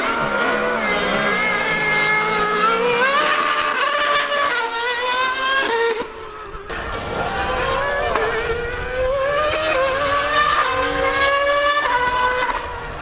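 Mercedes Formula One car's 2.4-litre V8 and a Yamaha R1M superbike accelerating hard from a standing start and racing on through the gears: the engine pitch climbs high and drops at each upshift, over and over. There is a brief dip in level about six seconds in.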